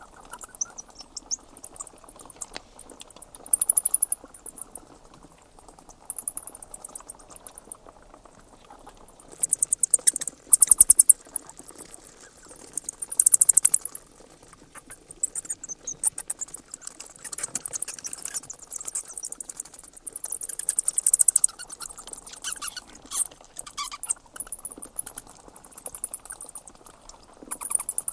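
Bats squeaking and chittering in short runs of very rapid, high-pitched clicks, one run every second or two, over a steady hiss.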